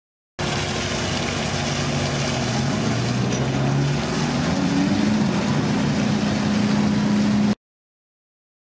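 Ship's engines running, a low hum that shifts in pitch a few times over a steady hiss; it starts and cuts off abruptly.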